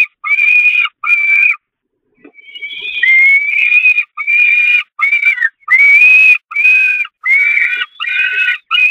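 Peregrine falcon chicks begging at a feeding: a loud run of harsh, drawn-out wailing calls, about ten back to back, broken by one short pause near two seconds in.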